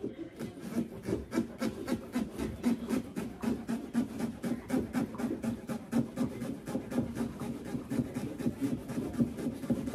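A carving knife sawing back and forth through a pumpkin's rind and flesh, a steady run of short strokes, about four a second.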